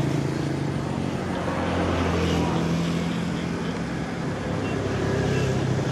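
Steady low engine drone of heavy vehicles over a hazy rumble of traffic noise.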